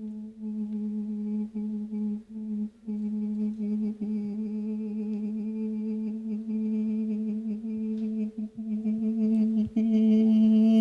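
A man holding a single sung note on one steady pitch, without a break, in a test of how long he can sustain it. Near the end it swells louder and a wavering vibrato creeps into it.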